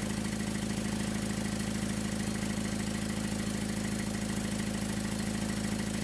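Car engine idling with a loud exhaust leak: exhaust gas puffing out through rust holes at the junction of the exhaust pipe and the muffler, a steady rapid pulsing.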